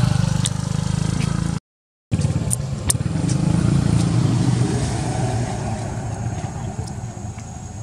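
A motor vehicle engine running steadily with a low hum, broken by a brief dropout about a second and a half in. A few sharp clicks follow soon after.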